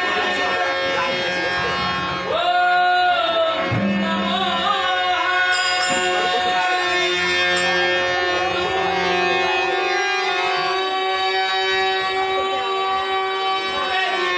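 Harmonium sounding a steady drone while a male voice, from about two seconds in, slides up into long, held, wavering notes, opening a Narad devotional song in Dashavatar folk theatre.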